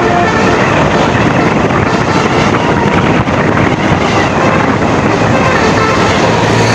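A bus running, with loud, steady engine and road noise and no clear horn blast.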